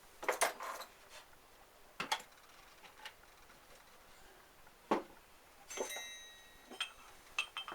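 Metal tools and driveshaft hub parts being picked up and set down on a workbench: a string of separate clicks and clinks, one near the middle-late part followed by a short metallic ring.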